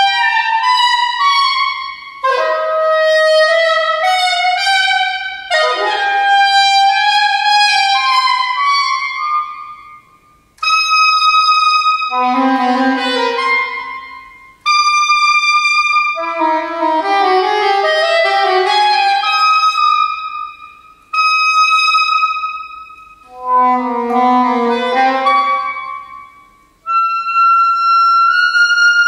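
A solo saxophone playing a concert work: quick runs of notes alternate with long held high notes, in phrases separated by short breaks.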